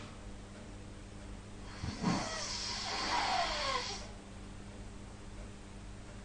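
One snore from a sleeping person, about two seconds in: a brief low rattle, then a long breathy rush with a faint whistle falling in pitch. It lasts about two seconds.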